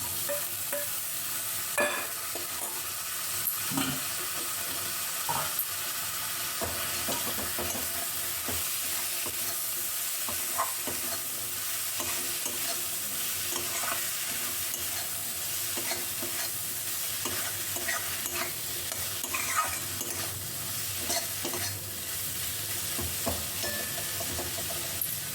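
Taro stolons sizzling in hot oil and spice paste in a pan while a spatula stirs and turns them, with scattered scrapes and knocks against the pan.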